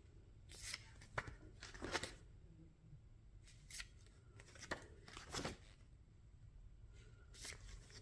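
Packaging being handled during an unboxing: several brief rustles and crinkles, one after another, over a low background hum.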